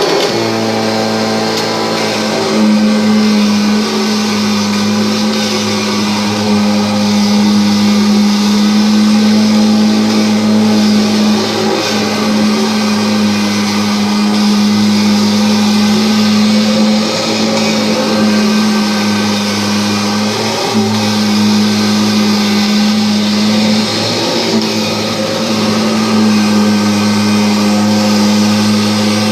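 Kirby G5 upright vacuum cleaner running at full speed: a loud, steady motor hum with airflow hiss while it cleans up crumbs. The pitch dips briefly a few times, around midway and again later.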